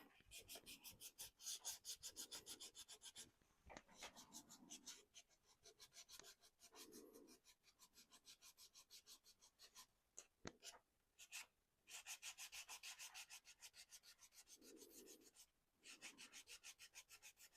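Faint hand sanding of a painted 3D-printed plastic body with sandpaper: quick back-and-forth rubbing strokes, about seven or eight a second, in several runs with short pauses between them. The sanding wears through the paint on the raised areas to give a weathered look.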